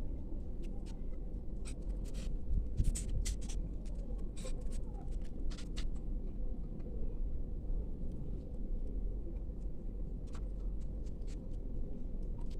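Small sharp clicks and rustles of hands handling paper and plastic packaging of a miniature book, busiest in the first half, over a steady low background hum.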